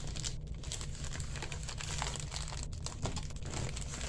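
Plastic poly mailer bag crinkling and rustling as hands pull it open, with many small irregular crackles.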